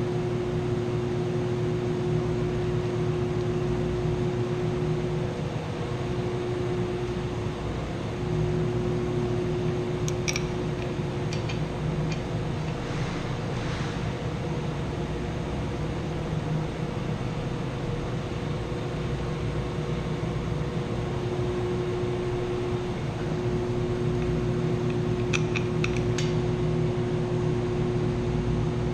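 Steady hum and drone of running machinery in a chiller plant room, holding one even tone, with a few short clicks about ten seconds in and again near the end.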